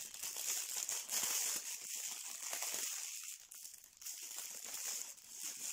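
Clear plastic packaging crinkling and rustling in the hands as the parts of a baby crib mobile are unwrapped, in irregular crackles with a short lull about halfway through.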